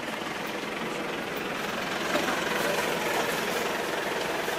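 A vehicle engine idling steadily, slightly louder from about two seconds in.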